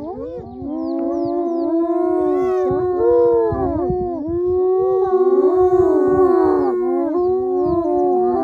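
A pack of spotted hyenas calling at once: many long, wavering cries overlapping, each gliding up and down in pitch.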